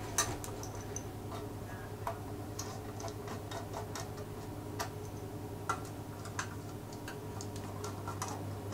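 Small screwdriver tightening the small screws that hold the focusing hood on a Ricohflex twin-lens reflex camera, giving scattered light metallic clicks and ticks over a steady low hum.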